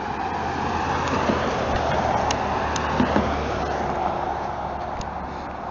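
A car driving past on the road, its tyre and engine noise swelling to a peak a couple of seconds in and then fading away.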